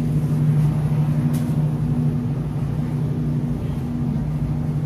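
Steady low hum and rumble of a grocery store's background machinery, two constant low tones over a low drone.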